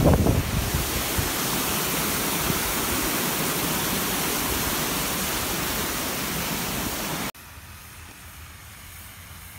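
Steady rush of whitewater tumbling over rocks in a small river cascade. It cuts off abruptly about seven seconds in, leaving a faint outdoor hiss.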